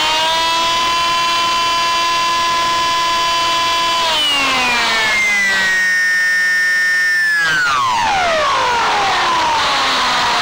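Electric motor and propeller of a ParkZone Striker RC flying wing, heard from its onboard camera: a steady whine that drops in pitch about four seconds in, holds, then winds down steadily through the second half as the throttle comes back. Wind rush over the airframe runs underneath.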